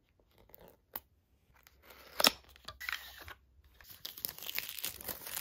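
Paper-board box of an Apple silicone phone case being torn open, with a sharp snap a little over two seconds in, then crinkly rustling as the case is pulled out and handled.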